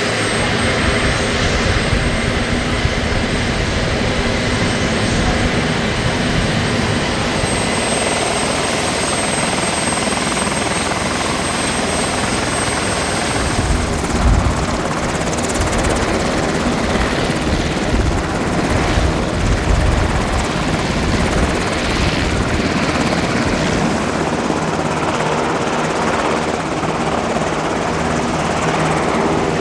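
Marine One, a Sikorsky VH-60N White Hawk helicopter, running on the ground with its turbine engines and main rotor turning: a loud, steady whine and rush. The low rotor thumping grows heavier for several seconds around the middle.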